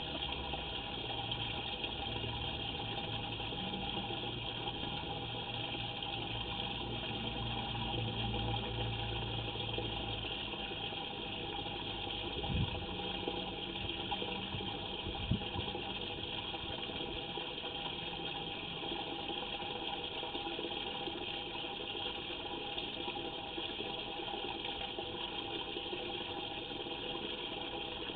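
Steady rush of water flowing through a sewer line. A low hum under it stops about eleven seconds in, and two short knocks follow a few seconds later.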